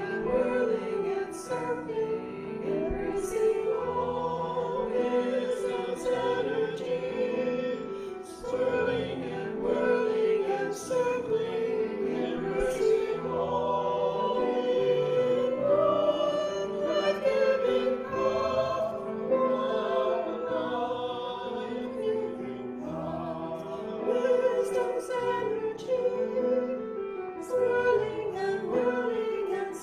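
Recorded choir singing sustained, wavering notes, the music running continuously.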